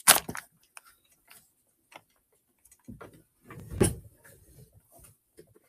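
Handling noise from a shiny fabric placemat as it is lifted and held up: scattered light clicks and soft rustles, with a louder rustle about four seconds in.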